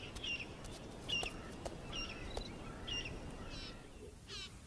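Birds calling against a faint outdoor background: short high chirps about once a second, then two quick trilled calls near the end, with a few faint ticks.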